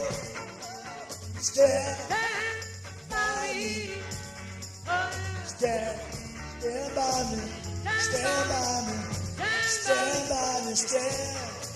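Loose rock jam music: a bass line under a lead melody that bends in pitch, with bright high percussion throughout.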